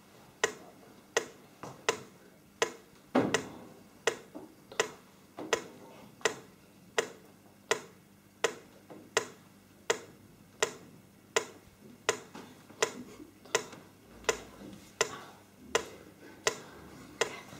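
Sharp clicks at a steady, even beat, a little under one and a half a second, like a metronome beating time for slow movements done in unison.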